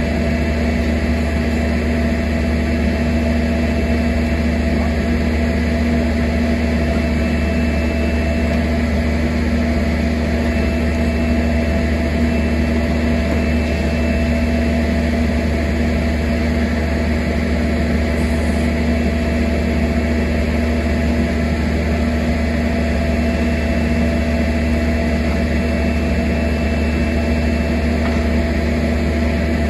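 Engine of a mobile rail welding machine running steadily at a constant pitch, with a persistent hum and a faint higher whine.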